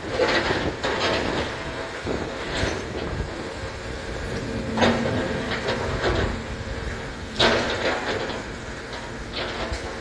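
Hidromek 140 crawler excavator's diesel engine running steadily, with several separate clanks and knocks as its bucket works a pile of broken concrete and paving stones.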